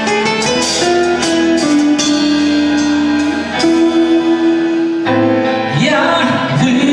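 Live band music: strummed guitars under a melody of long held notes, the opening of a song.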